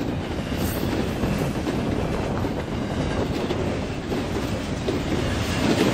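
Double-stack intermodal container freight cars rolling past, a steady rumble of steel wheels on the rails.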